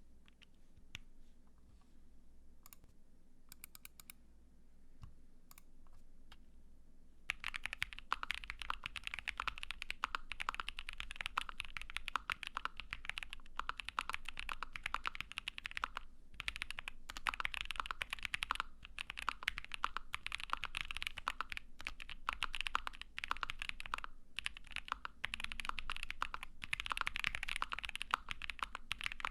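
ai03 Vega mechanical keyboard with lubed Gazzew U4T Boba tactile switches on an FR4 plate and GMK keycaps being typed on. A few scattered keystrokes come first, then fast continuous typing from about seven seconds in.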